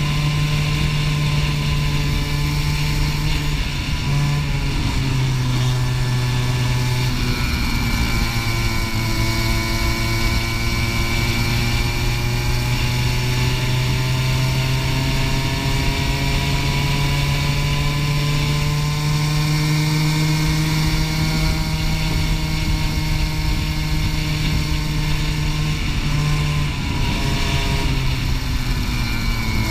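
Racing go-kart engine heard from on board at speed over rushing noise, its pitch climbing slowly along a straight, dropping sharply near the end as the kart slows for a corner, then rising again.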